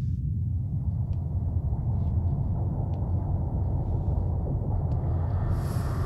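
Steady low rumbling drone of a sound-design effect for a glowing magical portal, with a hissing layer that builds over the first second and a high shimmer coming in near the end.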